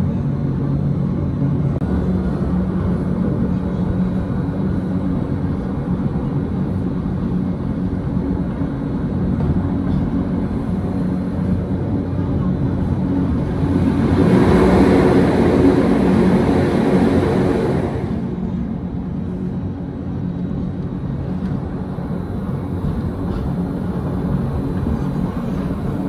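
Electric rack-railway train of the Gornergrat Railway running, heard from inside the carriage: a steady hum of motors and wheels with a few low tones. About fourteen seconds in it swells into a louder rushing noise for some four seconds as the train runs close past a rock wall, then settles back.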